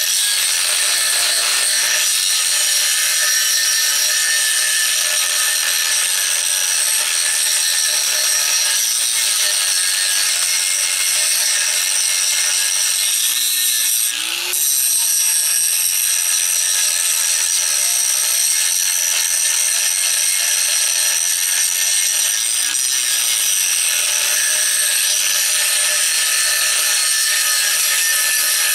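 Inexpensive electric angle grinder with an aluminum grinding disc running under load, grinding old weld off an aluminum tube: a steady high-pitched whine that eases off briefly about halfway through, then picks up again.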